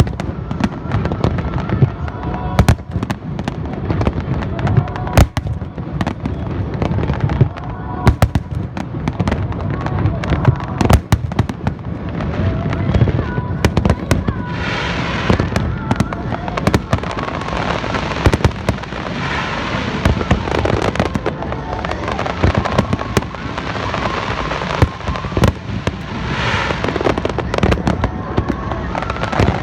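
Large aerial fireworks display: a dense run of shell bursts bangs over a continuous low rumble, with spells of crackling and hiss about halfway through and again near the end.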